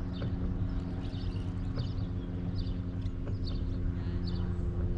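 A motor running with a steady low hum, with faint short high chirps repeating a little more than once a second.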